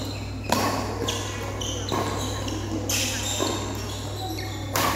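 Badminton rackets hitting the shuttlecock in a doubles rally: about five sharp cracks spaced roughly a second apart, each ringing briefly in the hall, over a steady low hum.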